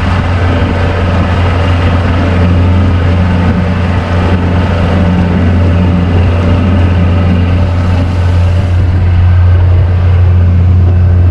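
Boat's motor running steadily under way, a loud low drone with water churning behind the boat.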